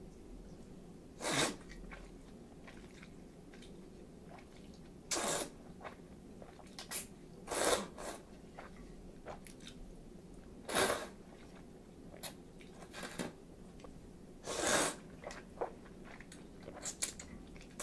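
Chilled ramen noodles being slurped, five loud short slurps a few seconds apart, with softer chewing and mouth clicks between them.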